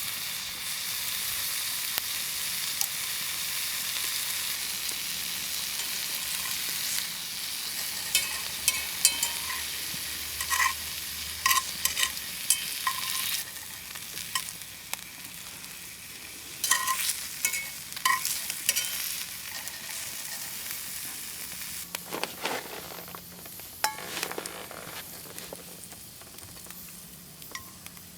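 Meat sizzling as it cooks over a campfire, with a steady hiss that eases off in the second half. Sharp metallic clinks come in a cluster between about a third and two-thirds of the way through.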